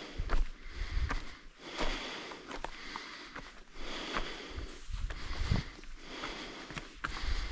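A hiker breathing hard and rhythmically on the trail, with a breath about every second.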